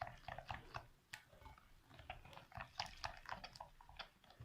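Thin semolina cake batter being stirred by hand in a bowl: a string of short, soft wet strokes, several a second, at an uneven pace.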